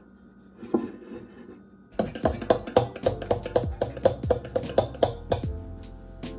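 Metal utensil stirring in a stainless steel mixing bowl: soft scraping at first, then a fast run of clinks against the bowl's side, about four a second, each ringing briefly, that stops near the end.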